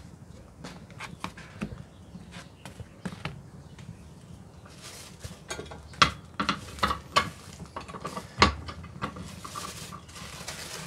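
Irregular clicks and taps with a few short rustling bursts, from tortillas being handled as they toast on a comal. The sharpest knocks come about six and eight and a half seconds in.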